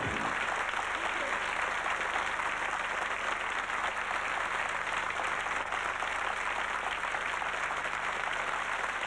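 A song's last sung note and band cut off at the very start, then a studio audience applauds steadily.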